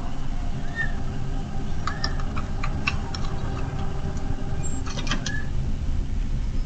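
Steady low outdoor rumble, with a cluster of sharp clicks about two to three seconds in and again around five seconds, and a couple of brief chirps.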